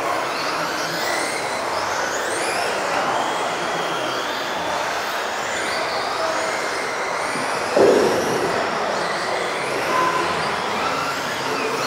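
Several electric off-road RC cars racing together, their motors whining in high pitches that rise and fall as they accelerate and brake, echoing in a large hall. There is one sharp knock about eight seconds in.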